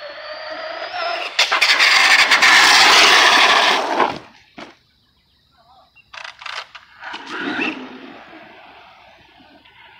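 Arrma Big Rock 4x4 BLX RC monster truck running on a 6S battery: its brushless motor whine rises, then a little over a second in a loud rough rushing noise with clicks takes over for about two and a half seconds before it stops sharply. After a near-silent gap come scattered clicks and knocks, then a softer steady noise.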